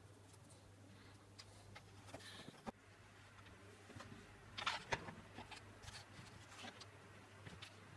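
Soft, scattered clicks and taps from a hand working a laptop's touchpad and keys, with a denser cluster of clicks about halfway through, over a faint steady low hum.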